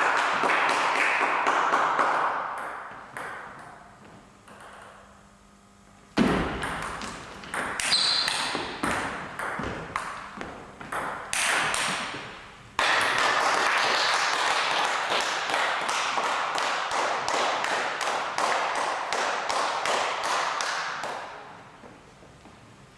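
Table tennis ball bouncing over and over on a hard surface, a quick steady train of light clicks about three a second, in several runs that start suddenly and die away.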